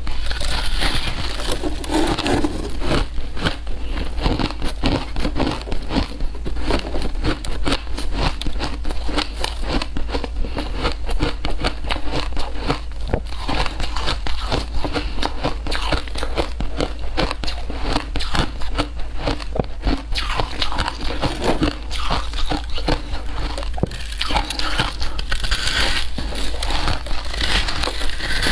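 Shaved ice crunching and crackling as it is bitten and chewed, picked up close on a clip-on microphone: a dense, unbroken run of small cracks.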